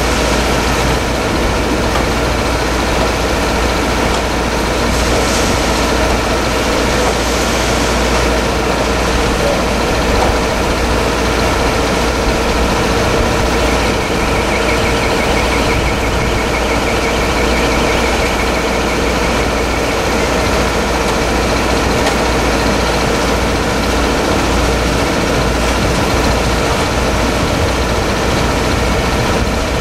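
A heavy engine running steadily at constant speed, a continuous mechanical drone with a deep rumble under it. A faint higher rattle joins for a few seconds in the middle.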